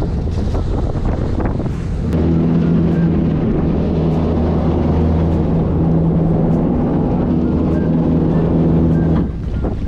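Steady low mechanical hum that starts about two seconds in and cuts off suddenly near the end, with wind buffeting the microphone throughout.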